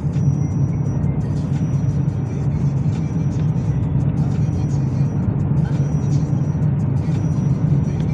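Background music playing over the steady low rumble of a car driving, heard from inside the cabin.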